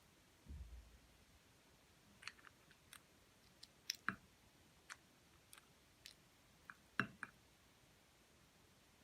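Slime being handled and mixed by hand, giving faint scattered sticky clicks and small pops, with a soft low thump about half a second in.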